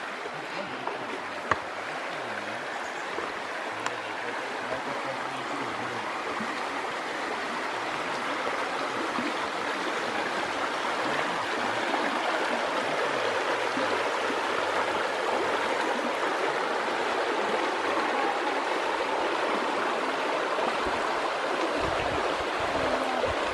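Melendiz River running over rocks in shallow riffles: a steady rushing of water that grows louder over the first half, then holds.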